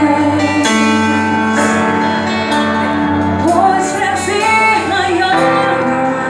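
Gospel worship song with sustained chords from the accompanying band and a beat about once a second; a sung melodic phrase glides through the middle.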